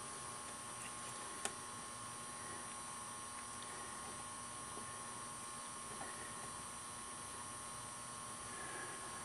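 Quiet room tone: a steady electrical hum and hiss, with one faint click about a second and a half in.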